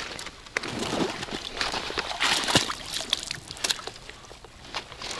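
Footsteps at a river's edge: dry grass and twigs crackle irregularly underfoot, and water sloshes.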